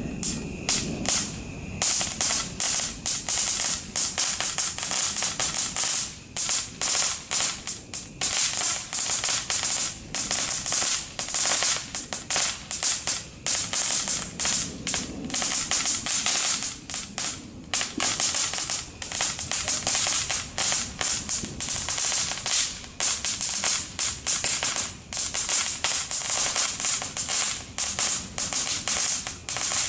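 Cajun Crackler fountain firework burning and crackling: a fast, irregular run of sharp crackles and pops as it sprays sparks.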